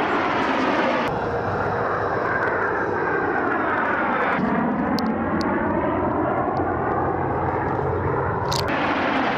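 A formation of military aircraft (an F-22 Raptor, an F-16, an F-86 Sabre and a P-51 Mustang) flying overhead: a steady engine roar whose tone sweeps as the planes pass. The sound changes abruptly a few times.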